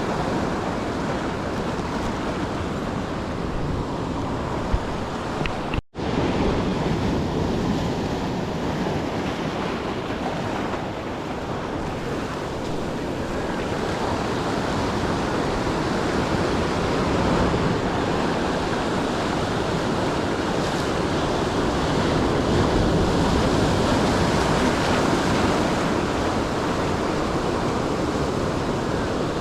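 Ocean surf washing and breaking, a steady dense rush, with wind buffeting the microphone. There is a brief drop-out to silence about six seconds in.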